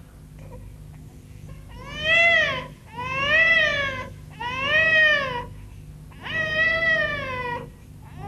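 Infant crying in four long wails, each rising then falling in pitch, with short catches of breath between them, over a faint steady low hum.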